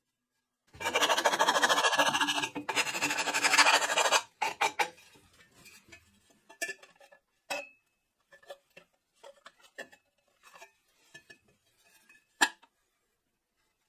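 Angle grinder grinding the end of a round metal tube for about three seconds. Then a run of light metallic clinks and knocks, each with a short ring, as the shaped tube end is set against another tube.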